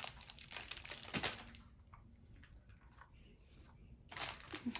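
Light clicks and taps from handling the plastic parts of a ring light stand, then a quiet stretch. Plastic packaging crinkling starts again about four seconds in.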